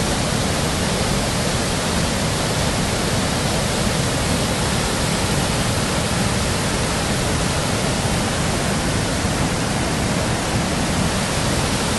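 Rushing water of a fast-flowing, flood-swollen river: a steady, even noise with no break.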